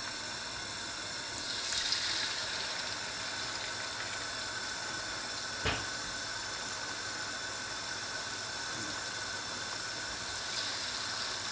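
Battered chicken strips deep-frying in hot oil in a wok, with a steady sizzling hiss. The hiss swells near the end as another piece is lowered into the oil. A single sharp click comes about halfway through.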